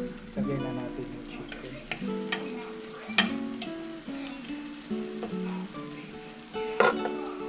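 Onions, garlic, ginger and lemongrass sizzling as they sauté in a pan and are stirred with a spatula, with two sharp knocks of the spatula on the pan, about three seconds in and near the end. Acoustic guitar music plays over it.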